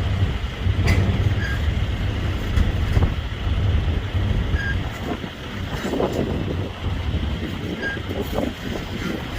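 Freight train rolling past: a steady low rumble of railcars with a few sharp clicks from the wheels.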